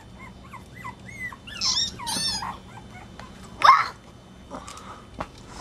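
Chihuahua puppies yipping and whimpering in a string of short, high-pitched, falling cries. The cries grow louder about one and a half seconds in, and there is one loud, sharp yelp past the middle.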